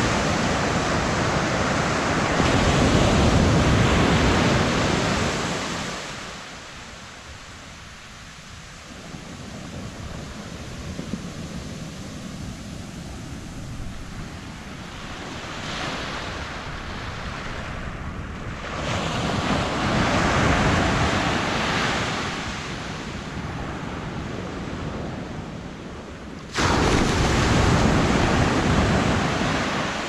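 Small waves breaking and washing up a sandy beach. The surf comes in swells that rise and fall over several seconds, loudest at the start and again in a rush that comes in abruptly near the end.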